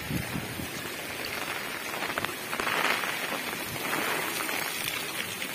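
Heavy rain falling on wet ground: a steady hiss that swells a little about halfway through.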